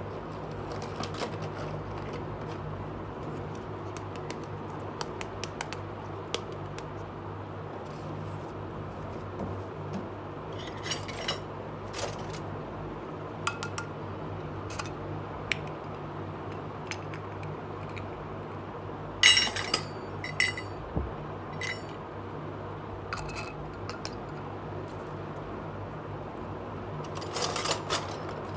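Miniature stainless-steel toy pots, lids and bowl clinking and tapping as they are handled and set down, in scattered small clinks with the loudest cluster about two-thirds of the way in. A steady low hum runs underneath.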